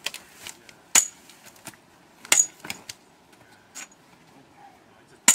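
A long-handled metal log-splitting bar driven down into walnut log rounds: three hard, ringing metallic clanks, about a second in, near the middle and at the very end, with lighter knocks between.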